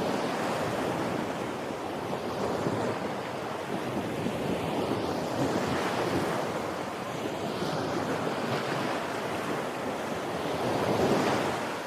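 Ocean surf breaking on a beach: a continuous wash of waves that swells and eases every few seconds, the biggest surge coming about eleven seconds in.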